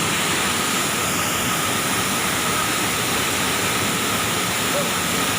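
Falling water of a river waterfall rushing as a steady, even hiss.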